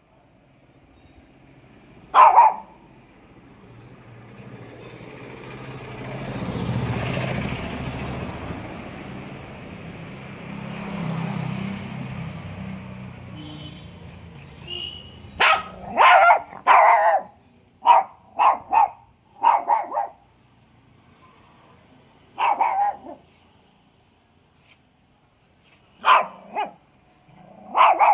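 A dog barking: a single bark about two seconds in, then a run of quick barks in the second half and a few more spaced barks near the end. Between them, the noise of a passing vehicle swells and fades.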